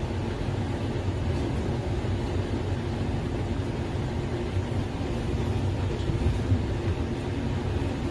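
Steady low mechanical rumble, unchanging throughout with no strokes or pauses, like room machinery running in the background.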